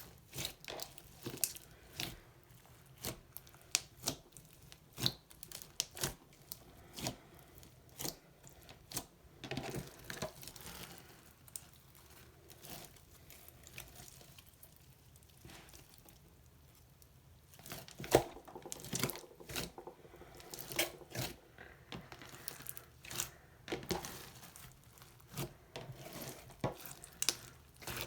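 Slime being stretched, folded and pressed by hand, giving irregular sharp crackling pops and clicks. The pops thin out for a few seconds midway, then come thick again.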